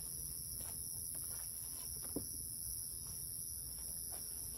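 Steady chorus of night insects such as crickets, a continuous high-pitched shrill at two pitches, with a faint knock about two seconds in.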